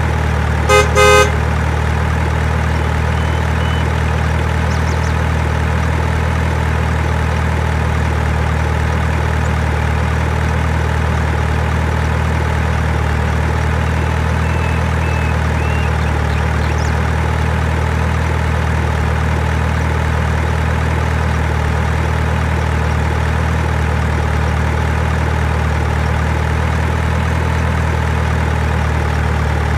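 Steady truck engine idling, a dubbed sound effect laid over the toy trucks, with two short horn toots about a second in.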